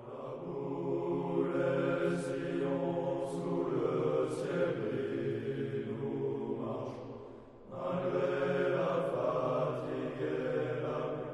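Men's voices singing together in long held phrases, a low chant-like song, with a short break about two-thirds of the way in.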